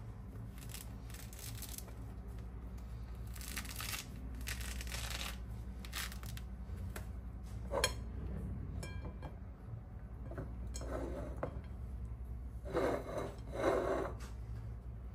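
Rustling and scraping of objects being handled, in irregular short bursts with a sharp click partway through; the loudest scrapes come near the end, over a steady low hum.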